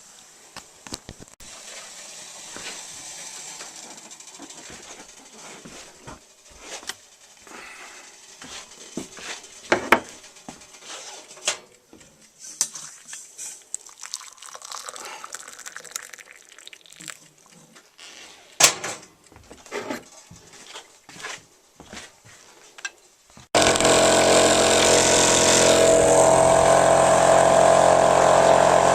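Clinks, knocks and pouring of hot water from a kettle as breakfast is set out. About 23 seconds in, a boat motor starts running steadily, loud and sudden.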